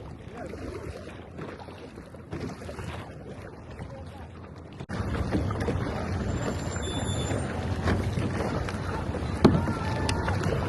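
Kayak paddles working the river water, with wind on the microphone. The noise jumps suddenly louder about five seconds in, and a sharp knock comes near the end.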